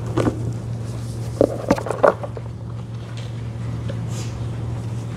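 Steady low hum of the room's sound, with a few short knocks and rustles in the first two seconds or so.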